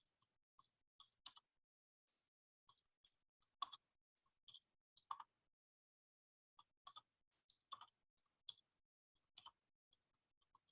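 Faint, irregular clicking of computer keys, single presses and quick pairs at uneven intervals.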